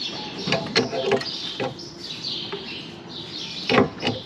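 Metal clinks and knocks of a filter wrench being fitted around a filter on a truck engine, with the loudest clank near the end. Birds chirp in the background.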